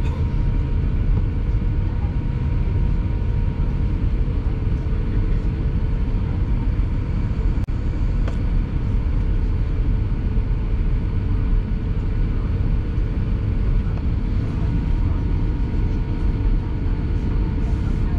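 Airbus A350-900's Rolls-Royce Trent XWB engines running at idle, heard inside the cabin: a steady low rumble with a faint steady whine on top. A single short click about eight seconds in.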